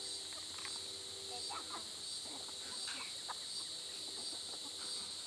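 Backyard hens clucking softly as they peck at scattered feed, over a steady high chorus of crickets.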